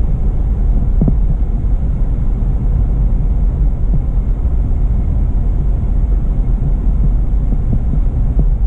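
Car driving along a street, heard from inside the cabin: a steady low rumble of engine and road noise.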